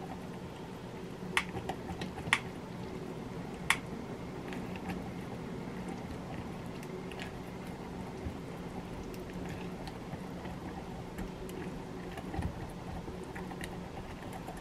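Cornbread batter being stirred in a bowl with a spoon: soft wet squishing, with three sharp clicks of the spoon against the bowl in the first few seconds. A steady low hum runs underneath.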